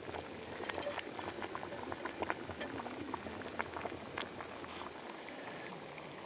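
Water boiling in a small pot on a canister gas stove: steady bubbling with many small irregular pops and crackles.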